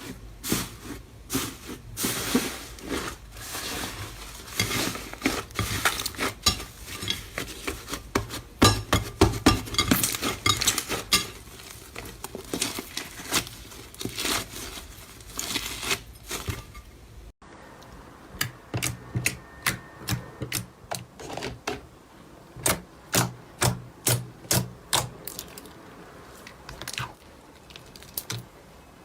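Slime being squeezed and pressed by hand, giving dense sticky clicks and crackling pops. About 17 seconds in it switches to a slower, evenly spaced run of sharp pops, about two or three a second.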